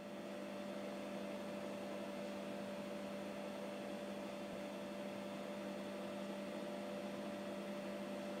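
Steady electrical hum: a low hum and a higher steady tone over an even hiss, unchanging throughout.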